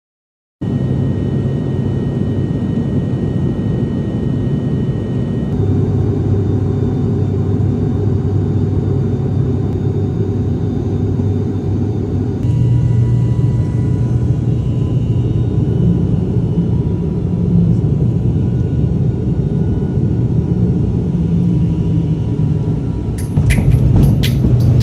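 Steady low engine drone, as heard riding in a motor vehicle, with a faint steady whine above it; the drone changes abruptly about five and twelve seconds in. Near the end a quick run of sharp clicks joins it.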